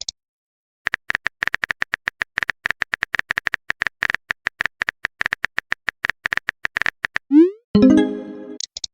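A rapid, irregular run of short electronic blips at the same pitch, then, about seven seconds in, a short rising swoop followed by a brief sound of several held tones that fades out.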